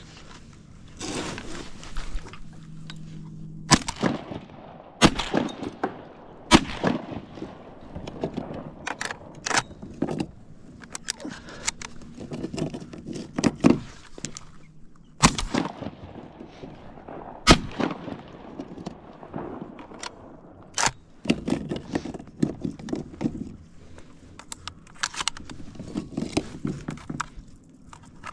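Shotgun shots fired from a kayak at diving ducks: a quick string of three about four seconds in and another string of shots about fifteen seconds in. Between them come smaller knocks and clatter from handling the gun and reloading.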